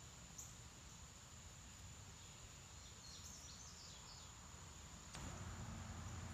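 Faint outdoor ambience: a steady low hiss with a few brief high chirps around the middle. About five seconds in there is a click, and the background abruptly gets louder, with a low hum.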